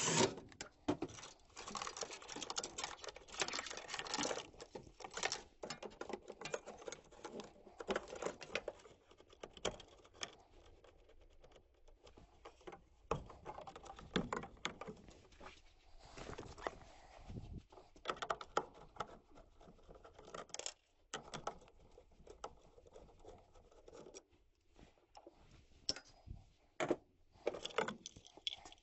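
Irregular clicks, scrapes and small rattles of hand tools and metal parts being handled while a gas furnace is taken apart.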